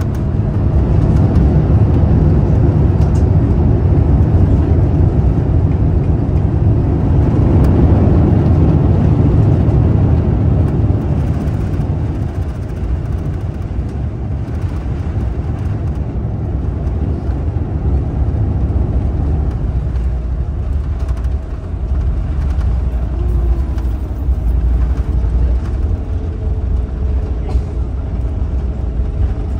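Airbus A350-900 landing rollout heard from inside the cabin: a loud, deep rumble that eases after about ten seconds to a lower, steadier rumble as the aircraft slows.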